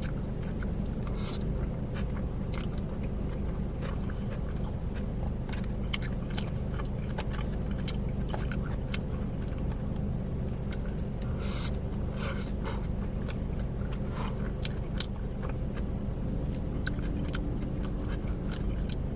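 Close-up chewing of battered fried orange chicken: repeated biting and wet, crunchy mouth sounds with small sharp clicks, over a steady low hum.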